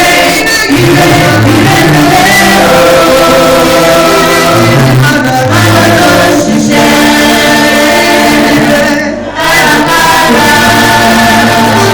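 A choir singing gospel music, men's and women's voices together holding long notes.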